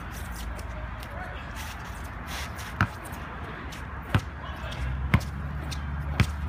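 Basketball bouncing on a wet asphalt court: four sharp single bounces about a second apart, starting about three seconds in, over a steady background hiss.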